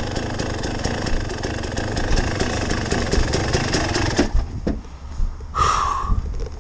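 KTM enduro dirt bike's engine idling with a steady, even beat, then cut off about four seconds in. A short high squeal follows about a second and a half later.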